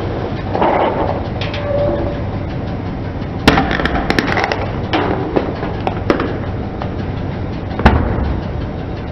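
Aluminium drink cans crushed under a slowly rolling car tyre: a series of sharp cracks and pops as the cans crumple and burst, the loudest about eight seconds in, over a steady low rumble.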